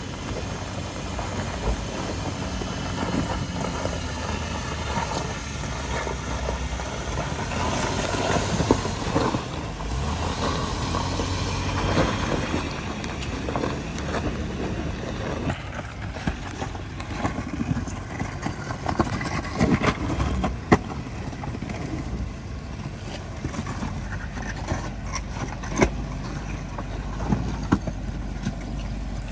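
Off-road 4x4s, first a Jeep Wrangler and then a Toyota Land Cruiser, crawling slowly over loose rock: the engine runs steadily under load, with scattered sharp knocks and clicks from stones under the tyres.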